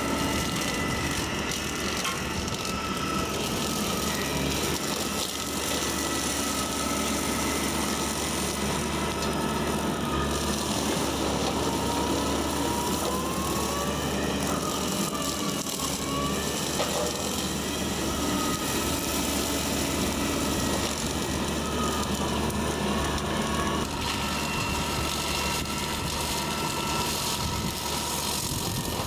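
Bobcat E45 mini excavator's diesel engine and hydraulics running steadily to power a brush cutter attachment. Whining tones ride over the engine hum and glide up and down around the middle.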